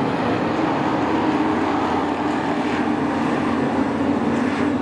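Race truck engines running on a short oval track: a steady, unbroken engine drone.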